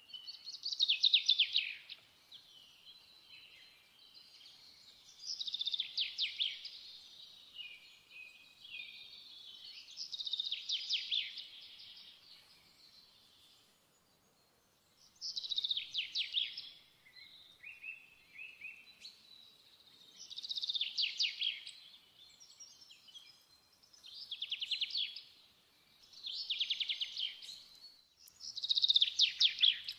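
A small songbird singing: short, rapid trilled phrases, about eight of them a few seconds apart, with quieter twittering between.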